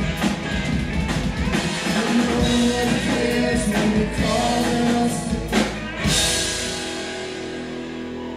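A live rock band plays: acoustic and electric guitars, bass and drum kit, with singing. About six seconds in, a cymbal crash lands and the band holds a chord that rings out, slowly fading.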